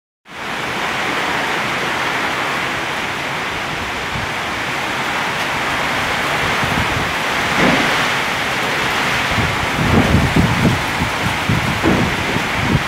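Kalbaishakhi (nor'wester) storm: heavy rain and wind making a loud, steady rush. From about halfway through come irregular low buffeting bursts.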